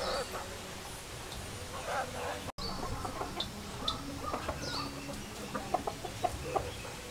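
Chickens clucking in short, scattered calls, with a few brief high chirps from small birds. The sound drops out for an instant about two and a half seconds in.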